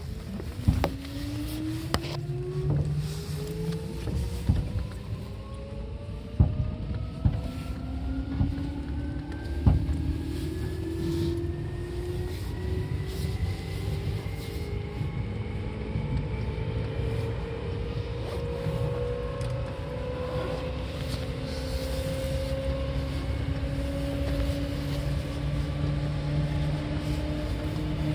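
Seibu 2000 series electric commuter train heard from inside the car while it accelerates: the traction motor whine rises steadily in pitch for about fifteen seconds, then levels off at cruising speed over a steady running rumble. Sharp knocks from the wheels over rail joints and points come in the first ten seconds or so.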